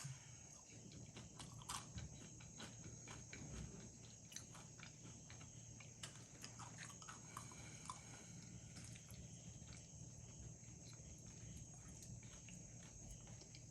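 Faint, close-miked chewing of loaded tortilla-chip nachos: many small crisp crunches, thinning out after about eight seconds.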